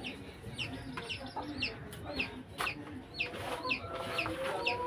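A bird's short, high, falling call repeated steadily about twice a second, over background voices and a few sharp clacks.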